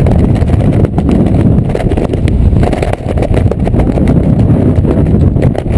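Wind buffeting a camera microphone during a parachute descent: a loud, unsteady rushing rumble of airflow.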